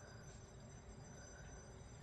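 Near silence: faint steady hum and hiss of room tone.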